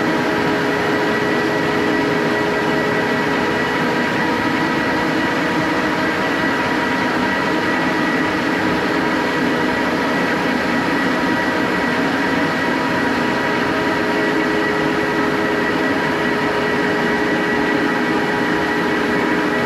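Hyper Grinder floor sanding machine running steadily while sanding a red oak floor, a constant mechanical din with a held whine of several steady tones.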